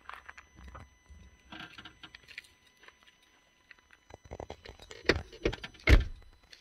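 Camera handling noise: scattered rustles and clicks, then a run of sharper knocks about four to six seconds in, the loudest near the end.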